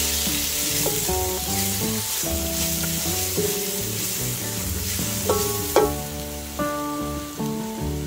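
Onion and spice masala sizzling in oil in a pot while a silicone spatula stirs and scrapes it. Background music of held instrumental notes plays over it.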